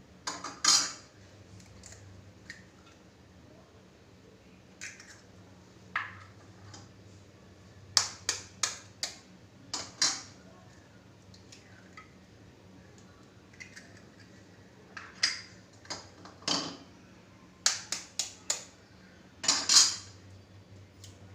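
Eggs being cracked against a pan and broken in, with sharp taps and clinks of shell and utensils on cookware in scattered clusters over a faint steady hum.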